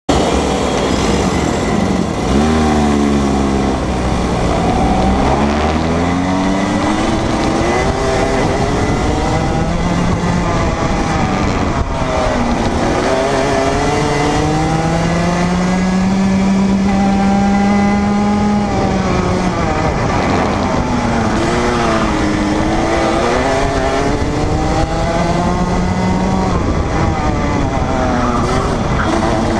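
Junior Rotax kart's single-cylinder 125cc two-stroke engine, heard onboard at race pace, with its pitch rising and falling again and again as the throttle opens and closes. A low steady hum fills the first few seconds.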